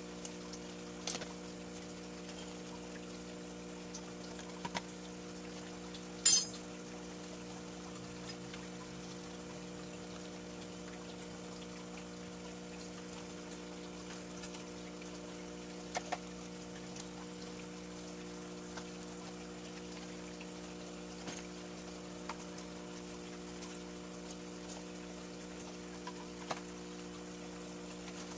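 Scattered sharp knocks and clinks as a small hammer cracks live snail shells on concrete and a metal spoon scrapes the crushed snails into a plastic bottle, about eight strikes spread out, the loudest about six seconds in. A steady hum runs underneath.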